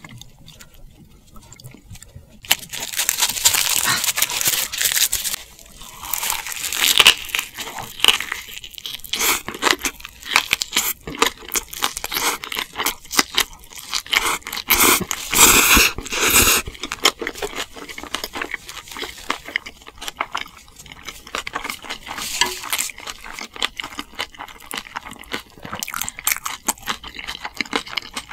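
Close-miked eating sounds: chewing and crunching of food in dense, irregular bursts, starting about two and a half seconds in and loudest near the middle.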